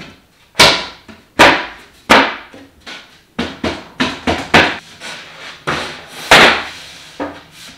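Plywood cabinet panels knocked together by hand, seating them onto Domino tenons for a dry fit: a series of sharp wooden knocks, the first few about a second apart, then a quicker cluster, with a longer, louder one about six seconds in.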